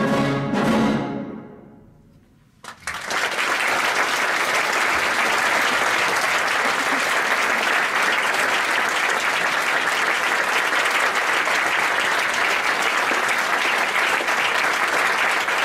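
A brass band with tubas and cornets plays its last short chords, the final one fading away to near silence. About three seconds in, the audience starts applauding and keeps on steadily.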